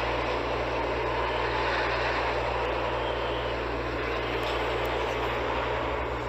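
Steady rushing rumble of a roller coaster train running along its steel track, over a constant low hum.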